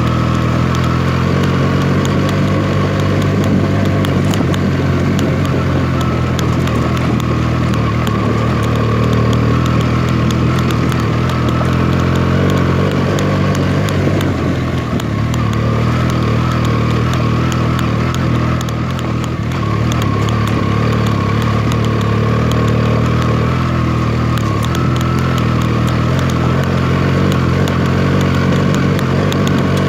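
Benelli TNT 300's parallel-twin engine running at a steady, nearly constant engine speed, with two brief small dips in level around the middle.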